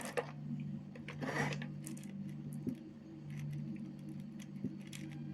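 Hands handling small electronic parts: light clicks and taps, with a brief rustle about a second in, over a steady low hum.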